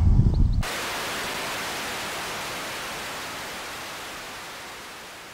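A low rumble for about half a second, then an abrupt switch to the steady hiss of a 5.8 GHz analog video receiver's static, the sign that the link from the copter's transmitter is lost. The hiss slowly fades away.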